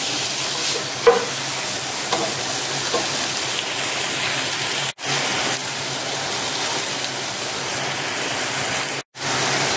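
Tomatoes, onions and spice powders frying in coconut oil in a pot with a steady sizzle, as the tomato softens and the oil begins to separate. A wooden spatula stirs at first, with one knock about a second in; the sound cuts out briefly twice.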